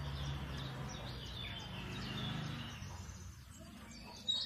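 Outdoor background noise: a low, steady rumble that fades after about three seconds, with birds chirping.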